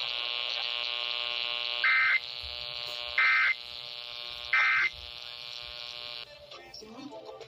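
Emergency Alert System end-of-message data bursts over a weather radio broadcast: three short, shrill digital bursts about 1.3 s apart, marking the end of a warning. Under them runs the station encoder/decoder's steady buzz, like an electric hair clipper, which cuts off about six seconds in.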